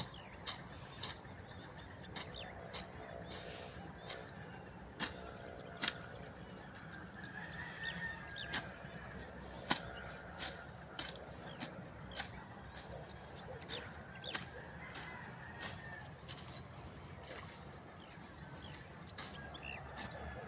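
Hand sickle slicing through grass stalks in short, sharp strokes, unevenly spaced at about one a second, over a steady high insect drone.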